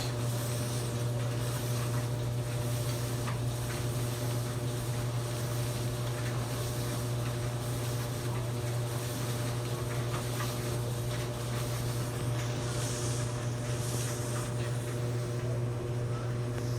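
Maytag clothes dryer running: a steady low hum from the motor and turning drum, with a few faint ticks.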